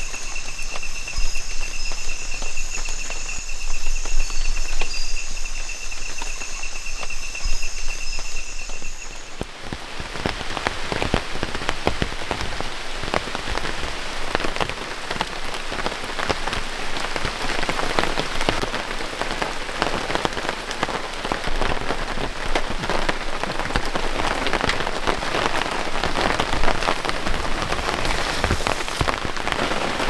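Amazon rainforest insects trilling in a steady night chorus of high, pulsing tones. About ten seconds in this cuts abruptly to steady rain falling, a dense hiss of drops.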